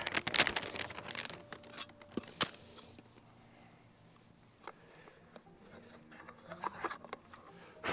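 Handling the smart bird feeder and its bag of birdseed: about a second of rustling and rattling, then scattered clicks and taps of plastic parts.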